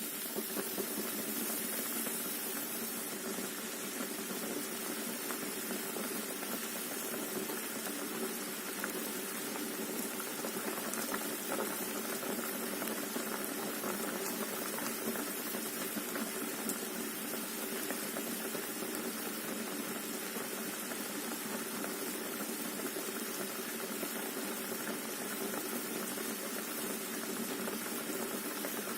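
Pot of water with potatoes and eggs in it, boiling and bubbling steadily.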